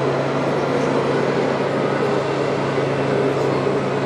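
A radio-controlled model truck running with a steady, engine-like drone and a low, even hum.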